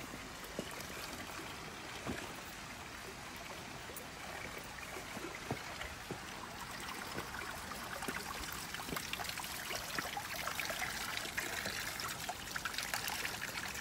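Spring water trickling from a metal spout and splashing into a stone basin. It grows a little louder about halfway through.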